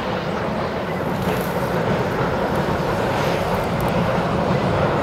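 OKz32-2 steam locomotive working a train on the approach, heard as a steady rumble of exhaust and running gear that grows gradually louder.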